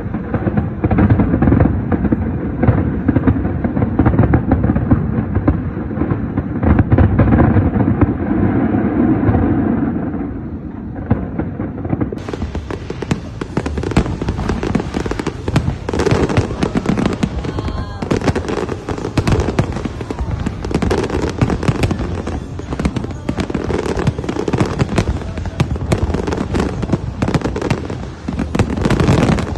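Fireworks display: a dense, continuous barrage of aerial shells bursting, with crackling and bangs overlapping one another. About twelve seconds in the sound turns brighter and clearer.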